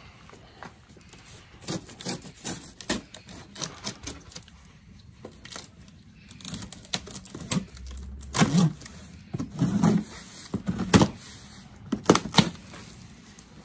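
A knife slitting packing tape on a cardboard box, a run of irregular crackles, clicks and scrapes. In the second half the cardboard flaps are pulled open, with louder knocks and rustles.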